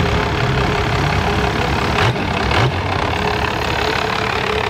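Rat rod sedan's exposed engine running as the car rolls slowly by, with two short revs about half a second apart about two seconds in.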